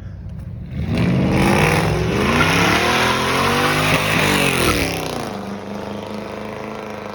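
A car doing a flyby: its engine revs hard as it comes past, the note climbing and then dropping away about four seconds in as it passes and leaves. A steady engine hum remains afterwards.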